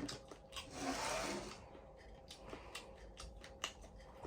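Close-up crunching and chewing of fried whole shrimp, shells and legs on: irregular sharp crunches with a louder noisy burst about a second in.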